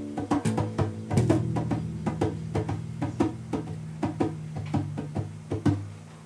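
Informal instrumental playing in a small room: light percussive taps, about four a second, over held low bass notes and plucked strings, fading near the end.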